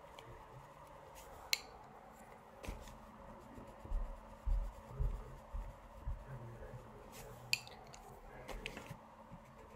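Quiet handling of pens and paper on a desk: a few sharp clicks spread through, and a run of soft low bumps in the middle.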